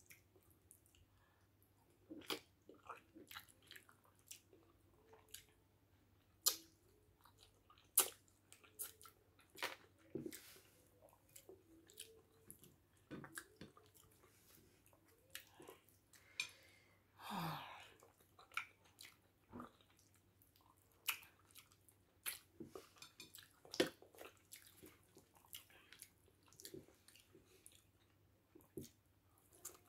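Close-miked eating sounds: chewing and wet mouth noises from someone eating egusi soup with potato fufu by hand, with frequent short sharp smacks and clicks.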